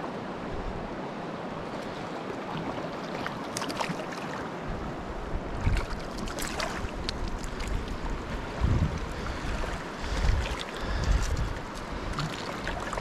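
Shallow, rocky Big Thompson River running over its stony bed, a steady rush of water, with a few low rumbles of wind on the microphone.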